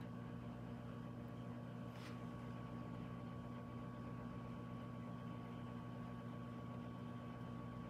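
Steady low hum of a running kitchen appliance, with one faint click about two seconds in.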